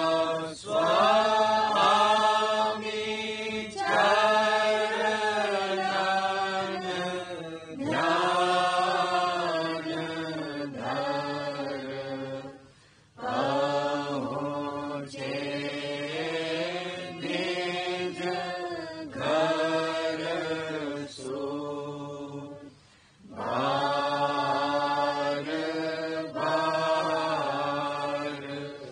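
Devotional Radhasoami hymn (shabd) chanted in long, drawn-out sung phrases, with short pauses between lines.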